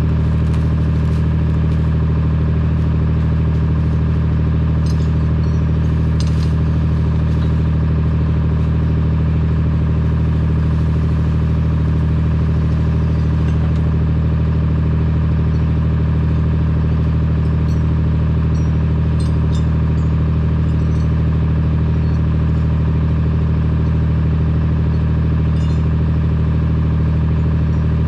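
A vehicle engine running steadily at an unchanging speed, with a deep even drone and a few faint light clicks over it.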